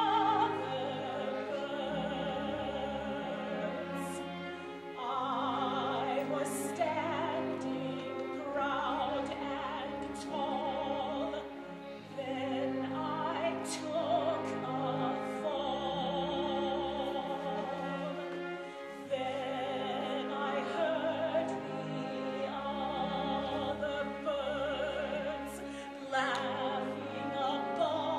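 Operatic singing with vibrato over orchestral accompaniment, in several phrases over held chords.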